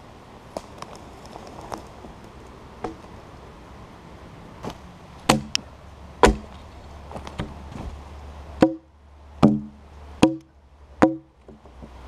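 Axe blows into a log: about six heavy strikes, each a hollow, woody knock with a short ring, the last four coming evenly, a little under a second apart. A few light taps come before them.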